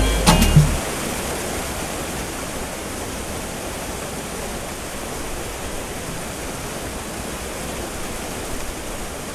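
Small waterfall pouring into a rock pool: a steady rush of falling water. A bit of music ends under a second in.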